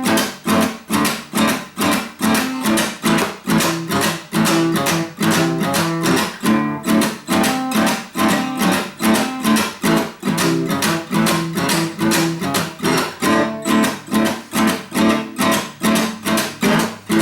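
Acoustic guitar strumming a steady blues rhythm with chords, an instrumental break with no singing.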